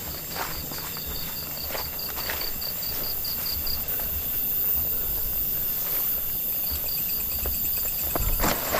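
Night insects calling: a high, rhythmic chirping of about four pulses a second over a steady high-pitched insect drone. The chirping stops about four seconds in and starts again near seven seconds. A few faint footsteps are also heard.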